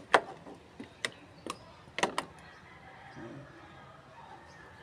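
Kitchen cookware and utensils knocking and clattering: about half a dozen sharp, irregular knocks over the first two and a half seconds, then only low background.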